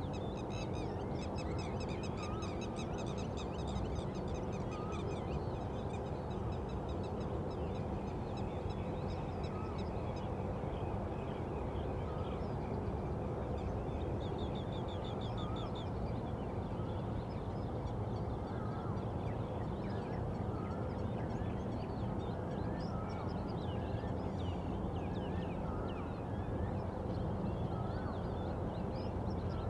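Dawn chorus of many birds chirping and trilling, with one short call repeating every second or two, over a steady low rumble and hum.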